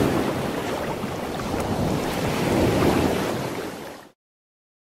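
Rushing noise of sea surf and wind, swelling twice, then fading and cutting off about four seconds in.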